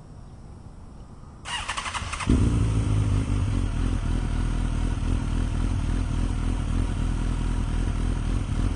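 2004 Suzuki GSX-R1000's inline-four engine, fitted with a Yoshimura TRS slip-on exhaust, being started: the electric starter cranks for about a second, then the engine catches and settles into a steady idle.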